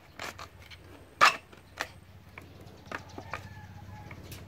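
Homemade butane-powered combustion shotgun firing once: a single sharp pop about a second in. Several lighter clicks and knocks come before and after it.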